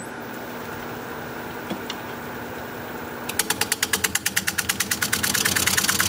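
Wood lathe running at 550 RPM with a steady motor hum. About three seconds in, a bowl gouge starts cutting the spinning juniper blank, and a fast, even knocking sets in, about nine knocks a second and growing louder. The cut sounds kind of hollow from all the cracks in the wood.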